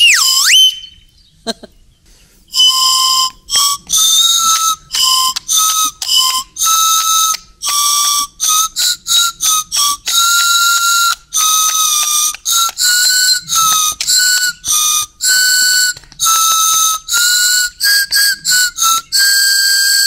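Small pink plastic toy flute blown in an improvised tune: a quick downward swoop at the start, then after a short pause a run of shrill, breathy notes, some short and some held, stepping among a handful of pitches.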